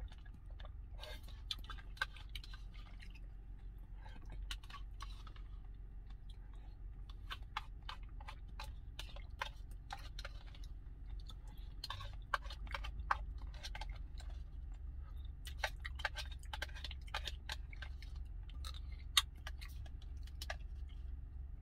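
Someone eating rice porridge from a plastic cup with a plastic spoon: irregular light clicks and scrapes of the spoon against the cup, with chewing and mouth sounds, over a steady low hum.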